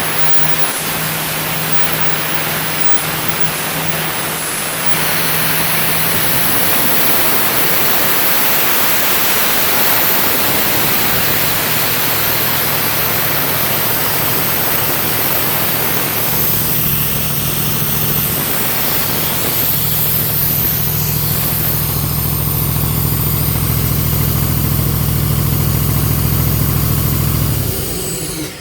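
Engine-driven air compressor running steadily: a low engine drone under a loud rushing hiss, stepping up in level about five seconds in.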